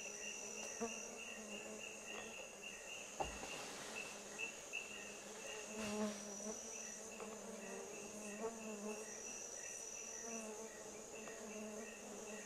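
Rainforest insect chorus: a steady high-pitched drone with a fast, regular pulsing chirp beneath it, and fainter lower calls underneath. A single sharp knock comes about three seconds in.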